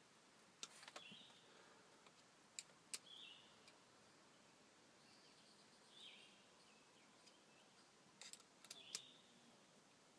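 Near silence with a bird's short chirps, four of them spread out, and a few faint sharp clicks scattered among them.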